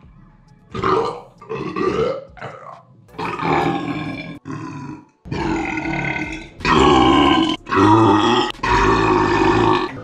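Men belching one after another: about nine long, forced burps, each lasting from half a second to over a second, the loudest ones in the last few seconds.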